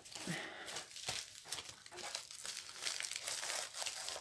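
Crinkling and rustling of a rolled diamond-painting canvas being handled, as a run of irregular short crackles.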